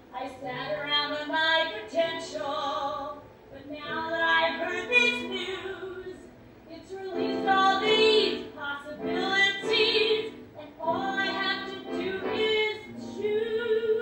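A woman singing a show tune live in short phrases, ending on a long held note.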